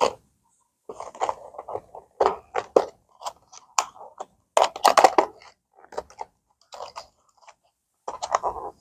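Plastic lure packaging being handled and pried open, crinkling and crackling in irregular bursts, loudest about five seconds in.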